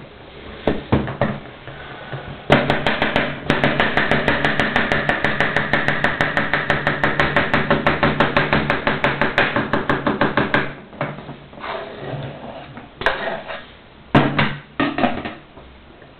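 Kitchen knife rapidly chopping carrot on a wooden cutting board: a fast, even run of knocks, about six a second, for around eight seconds. After that come a few irregular knocks and scrapes.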